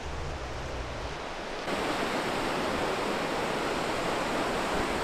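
Ocean surf washing onto a beach, a steady hiss of breaking waves. It gets louder about one and a half seconds in.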